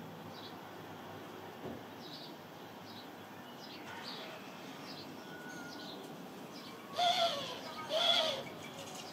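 House sparrows chirping at a seed feeder: short, faint chirps repeated every half second or so, then two louder calls near the end.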